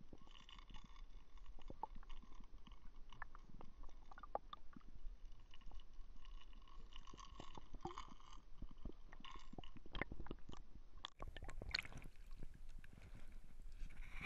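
Muffled underwater sound picked up through a GoPro's waterproof housing: faint crackling and small clicks with a faint steady hum. About eleven seconds in it switches to open-air sound of water lapping against the boat hull with sharper clicks.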